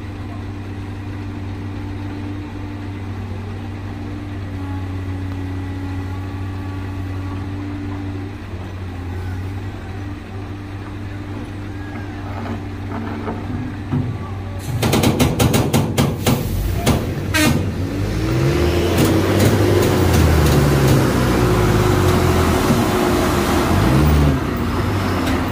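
Diesel engines running steadily at low revs. About halfway through it gets much louder: a tractor-trailer's diesel engine revs hard, its pitch rising and falling several times, with harsh noise from the drive wheels spinning and smoking on the road as the truck strains to pull its loaded container trailer.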